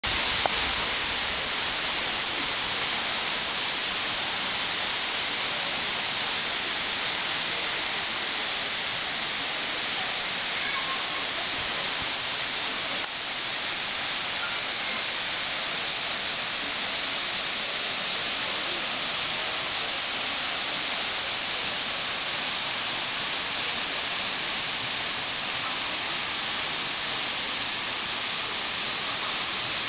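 Waterfall: a steady rushing hiss of falling water that stays even throughout.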